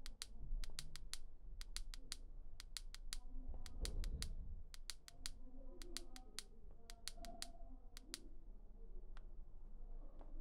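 A series of sharp clicks at irregular intervals, often several in quick succession, over a low rumble that swells briefly about four seconds in.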